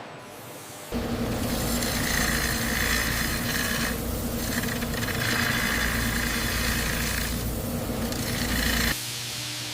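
Machinery running steadily, a hum under a noisy rush, starting abruptly about a second in and cutting off abruptly near the end.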